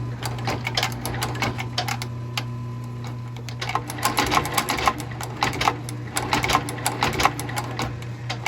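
Blake stitch machine sewing a new sole onto a shoe: a steady motor hum under a rapid run of sharp stitching clicks, which gets louder and busier about four seconds in.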